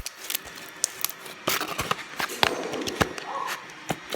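Slime being squished and stretched by hand, giving off irregular sticky clicks and pops.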